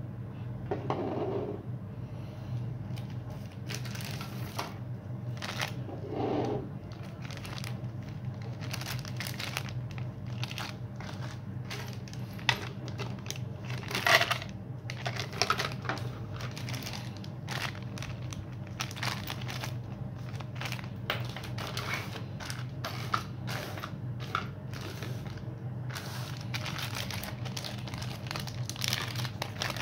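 Clear plastic parts bags crinkling and rustling as they are handled, with many short crackles and clicks, the sharpest about fourteen seconds in. A steady low hum runs underneath.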